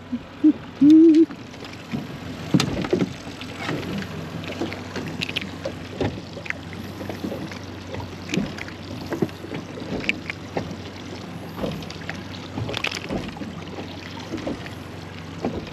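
Water lapping and slapping against a small boat's hull, with scattered light knocks and clicks. A brief low hum from a man's voice comes just after the start.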